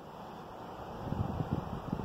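Wind: a steady hiss of breeze through the trees, with low buffeting on the microphone that grows louder about halfway through.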